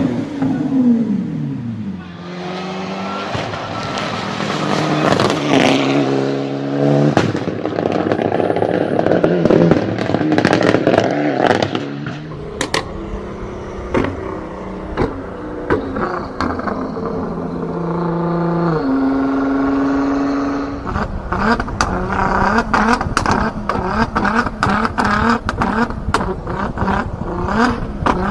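Performance car engines revving and dropping back, at times held at steady revs, with many sharp exhaust pops and crackles on the overrun, thickest in the last several seconds.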